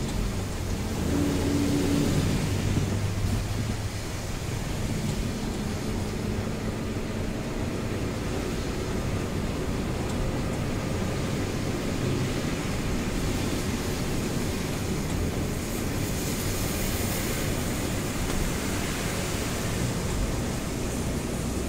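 Steady running noise inside the cab of a Mitsubishi Fuso diesel truck on the move: a low engine drone under an even hiss of tyres on the wet road and rain.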